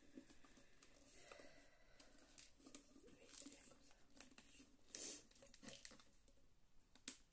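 Faint handling noises: small clicks and rubbing of the parts of an articulated bear figure as a leg is pushed into place, with a sharper click about five seconds in.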